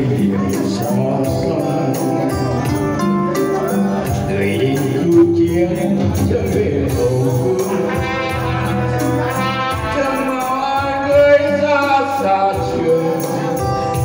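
A man singing a ballad live into a microphone, accompanied by acoustic guitar and a tambourine shaken in time.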